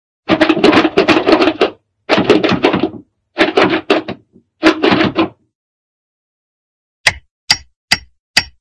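Hanna-Barbera-style cartoon sound effects: four bursts of rapid clattering knocks, each about a second long, then after a pause four short sharp clicks about half a second apart near the end.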